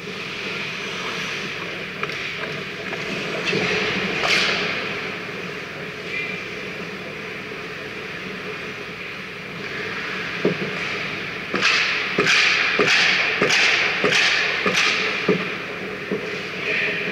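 Ice hockey skates scraping and carving on the rink ice, with a run of sharp scraping strokes about two a second in the second half and a few sharp knocks.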